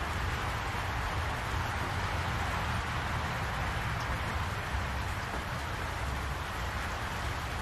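Steady rain falling on leaves and ground, an even hiss, with a low rumble underneath.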